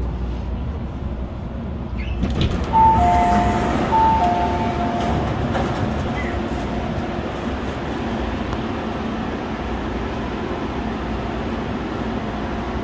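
MTR Tung Chung line CAF train running, a steady rumble heard from on board, with a two-note high-low electronic chime sounding twice about three seconds in.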